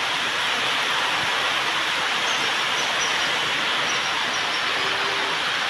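Heavy rain pouring steadily onto banana leaves, palm fronds and trees: a dense, even hiss.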